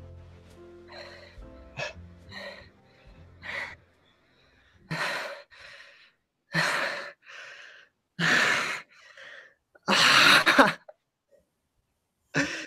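Background music fading out, then a man's loud, breathy gasps and heavy exhalations: four of them, about 1.7 s apart, the last the loudest.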